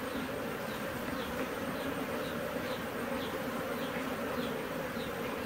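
Honey bees buzzing steadily over an opened hive, a dense, even hum. Faint high chirps repeat about twice a second in the background.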